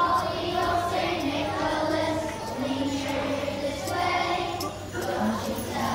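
A class of young children singing together as a group, in held, changing notes.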